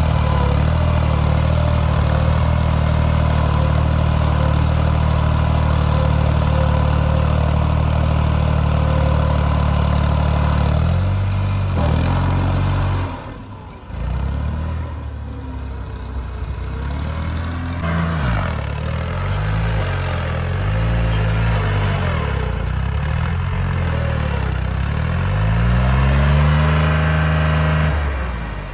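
New Holland 3600-2 tractor's three-cylinder diesel engine running steadily for about ten seconds, then revving up and down over and over, with a short drop about thirteen seconds in and a rise in revs near the end.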